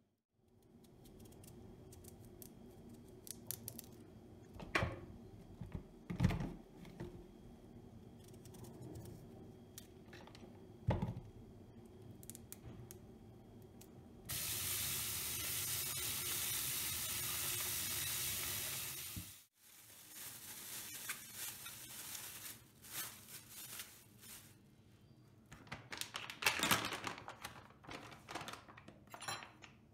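Kitchen food-preparation sounds: scattered knocks and clicks of utensils and dishes, and about halfway through a steady hiss lasting about five seconds that cuts off sharply.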